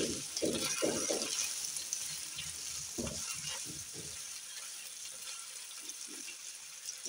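Sliced chillies, tomato and capsicum sizzling in hot oil in a nonstick wok, with a silicone spatula stirring them in a quick run of strokes in the first second and again around three seconds in. The steady sizzle goes on after the stirring stops.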